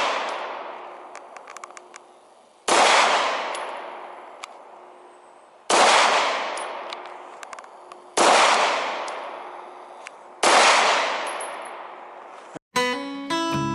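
Four 9mm pistol shots from a West German-made Sig Sauer P226, fired two to three seconds apart, each echoing and dying away slowly. A faint ringing lingers after the shots, like struck steel targets, and the echo of an earlier shot is fading at the start. Acoustic guitar music starts about a second before the end.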